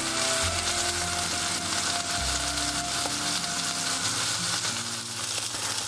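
Two marbled wagyu sirloin steaks sizzling steadily on a hot cast-iron griddle, just after being laid on.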